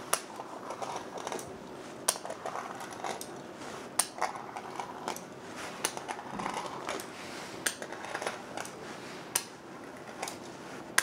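Fluted pastry wheel rolling across thin sheets of dough on a hard countertop, one cut after another: a sharp click about every two seconds as each cut begins, with a soft rolling scrape between.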